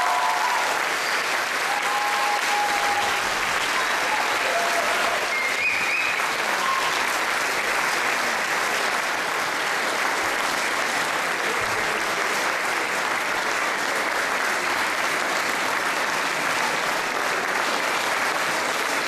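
An audience applauding steadily, a dense, even clapping that holds for the whole stretch.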